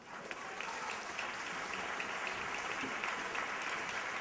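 Audience applauding: many hands clapping at once. It starts right away, fills out within the first second, then holds steady.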